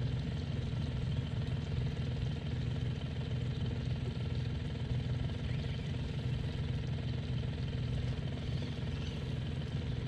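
Small outboard motor on an aluminium boat running steadily, an even low drone that holds the same pitch throughout.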